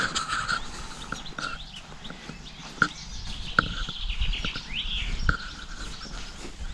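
Birds chirping and calling in short, gliding notes, with three short knocks a little under three, about three and a half, and a little over five seconds in.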